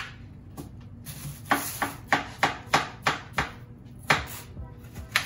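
Knife chopping through watermelon in a quick run of about seven chops, roughly three a second. Two more single chops follow, spaced apart.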